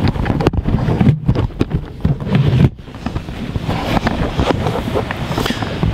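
Handling noise on a handheld camera's microphone as it is carried about: heavy rubbing rumble on the mic with scattered knocks and bumps, cutting out abruptly for moments a few times.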